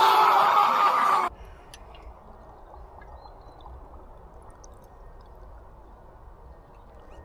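A man's drawn-out voice from a toast, stopping sharply about a second in, then a faint, steady outdoor background hiss.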